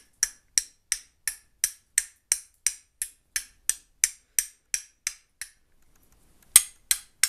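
Hand-forged steel fire striker struck repeatedly against a flint: a sharp metallic click about three times a second. The strikes stop for about a second near the end, then start again.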